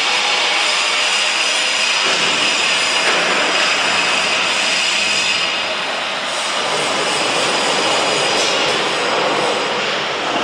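Wood pellet production machinery running under load: a loud, steady mechanical noise with a high whine, dipping slightly about six seconds in.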